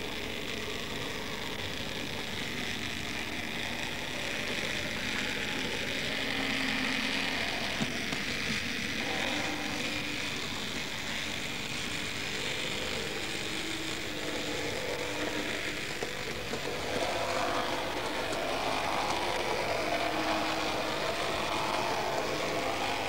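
Model railway train running on its track: the locomotive's small electric motor whirring and its wheels rattling over the rails in a steady mechanical drone, a little louder and wavering in pitch in the later part.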